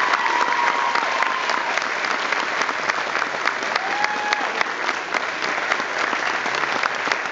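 Audience applauding steadily at the end of a choral song, with a short high call rising slightly about four seconds in.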